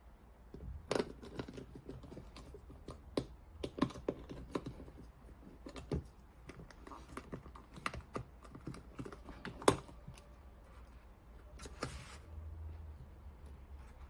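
Irregular plastic clicks and taps as the back housing of a LAUNCH X431 Pro Mini scan tool is pressed and snapped into place by hand, with one sharper snap nearly ten seconds in.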